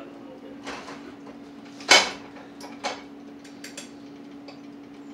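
Cookware clanking on a stovetop: a metal pan and pot knocked about, with lighter clicks of a utensil. One sharp clank about two seconds in is the loudest, and a few lighter knocks follow it over a steady low hum.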